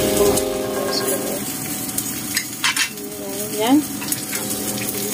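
Red grouper and spring onions sizzling in hot oil in a stainless steel frying pan, a steady hiss with a few sharp clicks in the middle. A short rising squeak sounds about three and a half seconds in.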